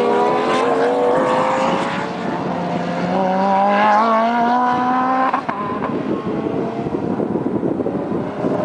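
Racing car engines accelerating on track, their notes climbing in pitch as they pull away. About five seconds in the sound breaks off sharply, and a rougher, noisier engine sound follows.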